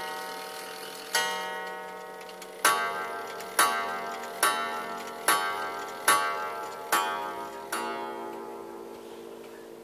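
Antique Austrian quarter-striking automaton clock striking. A last quarter blow sounds on one note, then seven quicker, louder hour blows on a brighter note, each ringing on and decaying; after the last blow the ringing slowly dies away.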